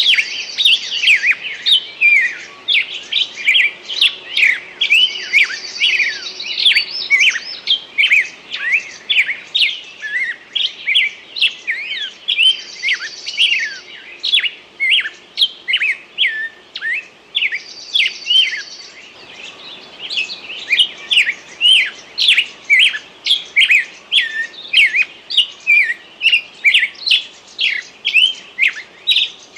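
Forest songbirds singing: a dense, unbroken run of short, quick downward chirps, with a higher, thinner trill of about a second from another bird cutting in four times, about every five or six seconds.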